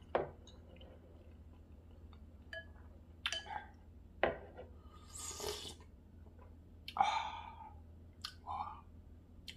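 Eating soup: a metal spoon clinks a few times against ceramic bowls as broth is scooped from a large bowl into a small one. Between the clinks come slurps of broth and chewing.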